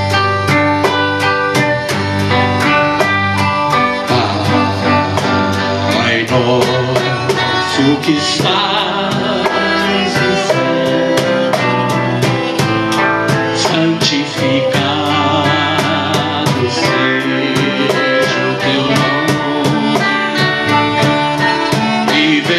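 Live band music: acoustic guitars strummed over a steady percussion beat, with a melody in long, wavering notes above.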